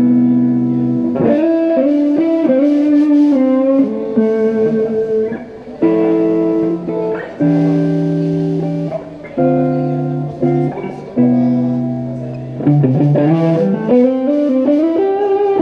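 Amplified electric guitar playing slow, held chords, struck again every second or two and left to ring. Near the end a run of notes climbs upward.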